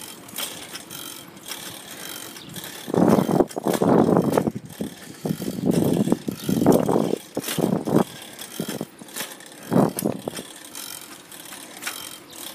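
Bicycle being ridden on a paved street, its chain and frame rattling and clicking, with louder noisy bursts about three seconds in, again around six to seven seconds, and briefly near ten seconds.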